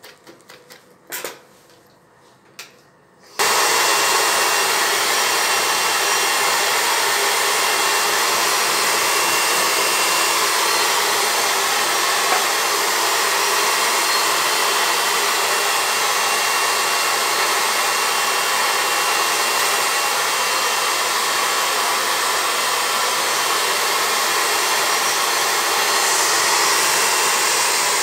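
Pet hair dryer switching on abruptly about three seconds in and then blowing steadily with a loud, even rushing noise as a puppy's curly coat is dried. A few light taps come before it starts.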